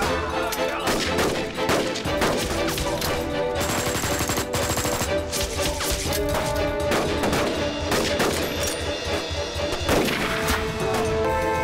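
Dense rifle gunfire, many shots in quick succession, with a dramatic film music score underneath.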